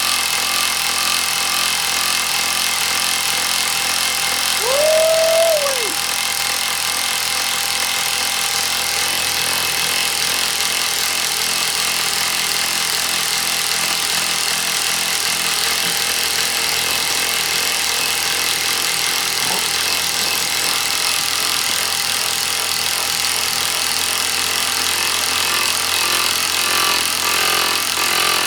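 Impact wrench hammering nonstop on a Duralast socket over a nut that won't break loose: a steady, rapid metallic rattle. A brief squeal rises and falls about five seconds in.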